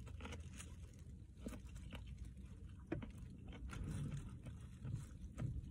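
Faint chewing and mouth sounds of a person eating, with small clicks and soft crinkles from the plastic bag over the eating hand scattered through.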